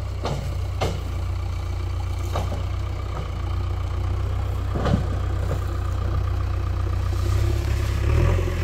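Motor vehicle engine running steadily with a low rumble, with a few light clicks or knocks scattered through.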